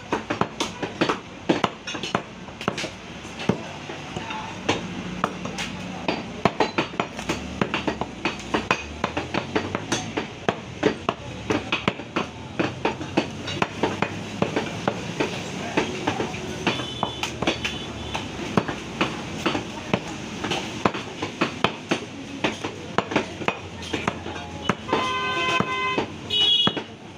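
Heavy cleaver chopping beef on a wooden stump chopping block: sharp, irregular knocks, a few a second. A brief steady horn-like tone sounds in the background about two-thirds through and again near the end.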